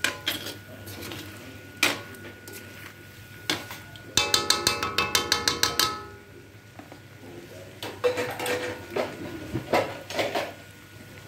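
Metal spoon stirring and scraping food in a metal wok, with scattered knocks against the pan. About four seconds in comes a fast run of about a dozen ringing metal taps, some seven a second, lasting under two seconds.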